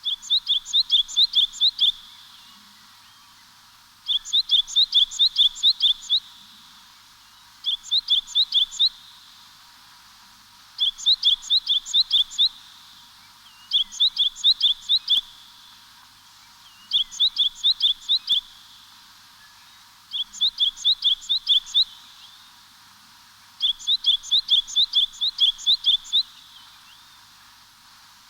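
A songbird repeating the same short song eight times, a few seconds apart. Each phrase is a quick run of about eight to ten high, clipped notes lasting one to two seconds, over a faint steady hiss.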